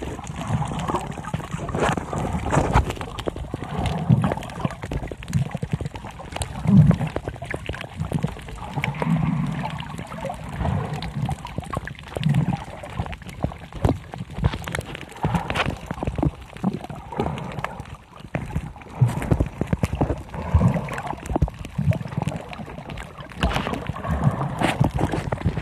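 Muffled water sloshing and gurgling as heard by a camera held underwater while snorkelling over a reef, with irregular low swells and many scattered short clicks.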